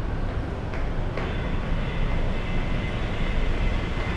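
Steady low rumble with a hiss over it, broken by two sharp clicks about a second in, after which a faint steady high whine runs on.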